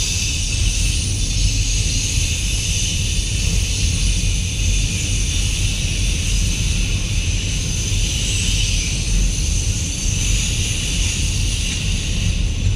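Freight train of autorack cars rolling steadily past: a continuous low rumble with a higher hiss of wheels on rail.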